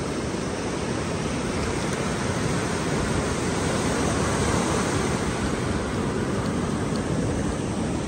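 Ocean surf washing in over a flat sandy beach, a steady rush of noise.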